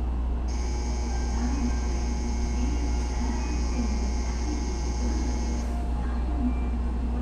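Steady low rumble of a Shinkansen station platform beside standing trains. A high-pitched steady whine starts about half a second in and cuts off suddenly after about five seconds.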